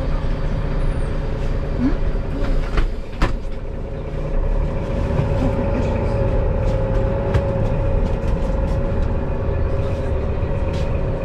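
Mercedes-Benz city bus heard from inside: a steady drivetrain hum with a held tone over a low rumble. The doors close with a couple of sharp knocks about three seconds in, and then the bus pulls away from the stop.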